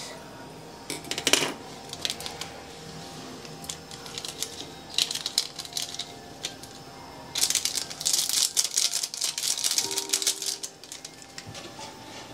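Plastic Maggi instant-noodle packaging crinkling and rattling in short spells, the longest from about seven to ten seconds in, as the masala sachet is shaken out and the noodle packet handled, over faint background music.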